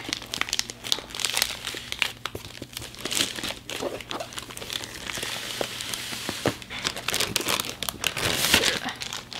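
Crinkling and rustling of a mailer envelope being pulled open and a cardboard box slid out of it, with many small irregular crackles.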